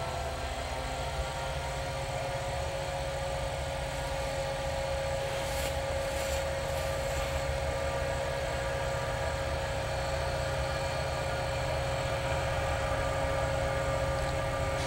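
A BB40-2 diesel-electric locomotive at the head of an approaching freight train, running as a steady low throb with a high whine held on one pitch, slowly growing louder.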